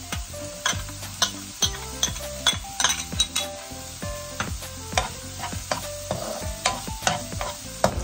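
Diced vegetables and ham sizzling in a nonstick frying pan while a metal spoon stirs them, with many sharp clinks of utensils against the pan.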